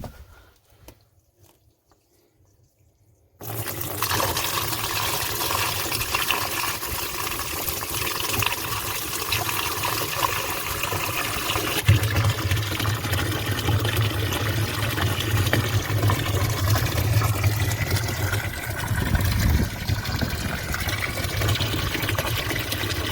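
Water rushing steadily out of a pipeline into a cattle stock tank, starting suddenly about three seconds in after near silence. A deeper rumble joins for several seconds past the middle.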